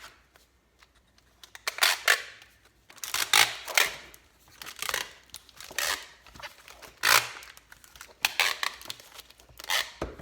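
Packaging tape pulled off the roll in short, loud rips, about eight or nine times with short pauses, as it is wrapped around a stack of thin plywood sheets.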